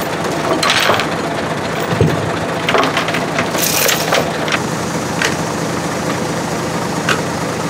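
Heavy steel chain clinking and clanking as it is piled into a metal side storage box on a truck, with several sharp clanks, and the box lid shut about five seconds in. A truck engine idles steadily underneath.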